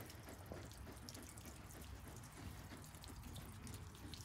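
Faint rain dripping and dribbling as many small, irregular drips.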